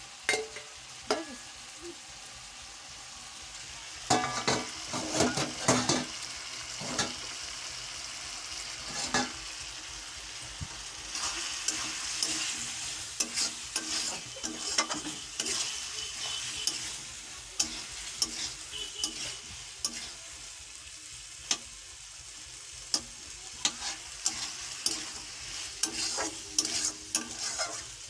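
Chilli chicken sizzling in a black kadai as a metal spatula stirs it, with repeated scrapes and clinks of the spatula against the pan over a steady frying hiss.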